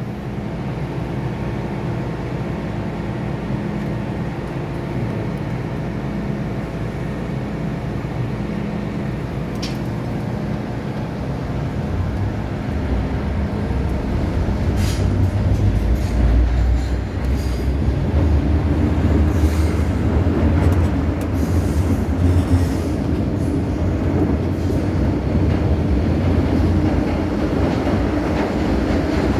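Inside an MTR M-Train subway car: a steady hum while the train stands at the platform. About twelve seconds in, a low rumble builds and grows louder as the train pulls away and gathers speed, with short rattles and clicks from the car.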